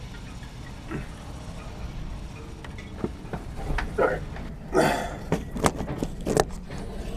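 Handling noise: a string of sharp knocks and clicks with a burst of rustling, from the camera and small gear being moved and handled, over a steady low rumble of wind on the microphone.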